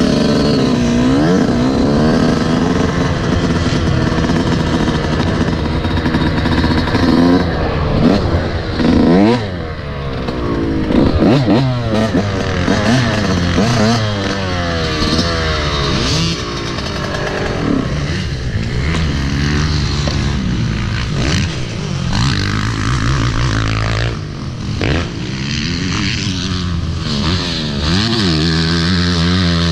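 Dirt bike engine heard from the rider's helmet as the bike rides off, revving up and falling back again and again as it speeds up and shifts gears.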